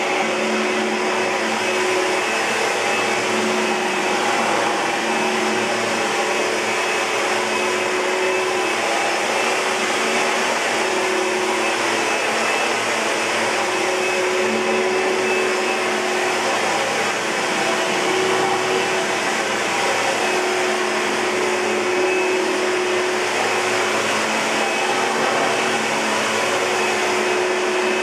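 2012 Oreck Magnesium LW100 lightweight bagged upright vacuum cleaner running steadily: a rush of air with a high motor whine held at a constant level.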